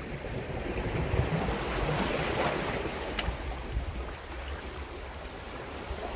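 Sea waves washing against shore rocks, with wind buffeting the microphone; the wash swells about two seconds in. A single sharp click a little after three seconds.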